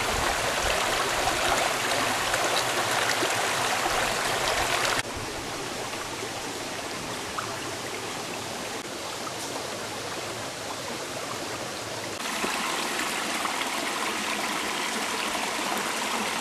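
Shallow rocky river running over boulders and small cascades, a steady rush of water. It drops abruptly quieter about five seconds in and gets louder again about twelve seconds in.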